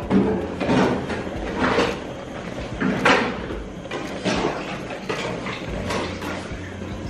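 A pot of ewedu (jute mallow) soup at a rolling boil, stirred with a spoon. Irregular knocks and swishes come about once a second over a steady bubbling noise.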